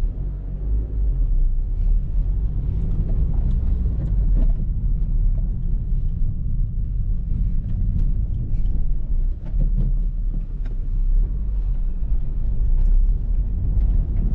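Low, steady rumble of a Honda Civic Reborn heard from inside its cabin, with a few faint clicks.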